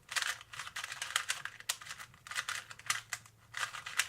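Plastic 2x2 twisty puzzle cube being turned quickly by hand through a J perm algorithm: several short bursts of rapid clicking and clacking as the layers snap round, with brief pauses between the bursts.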